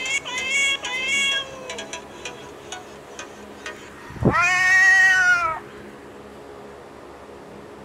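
Recorded cat meows played from the Whiskerz cat sound-board app: a couple of short meows, a few faint clicks, then about four seconds in one long, loud meow that sweeps sharply up in pitch and holds for about a second and a half.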